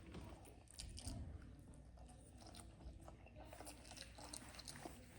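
Faint eating sounds: a person chewing food, with small scattered mouth clicks.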